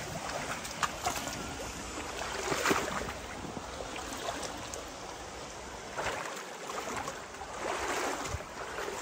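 Creek water running steadily, a continuous rushing with two louder swells, and a few faint clicks.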